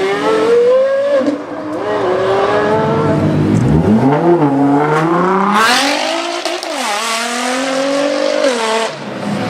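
Supercar engine accelerating hard, its pitch climbing and falling back several times as it shifts up through the gears.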